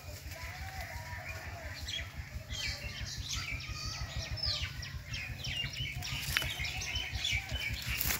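Small birds chirping, with many short, quick high calls from about two seconds in, over a steady low rumble.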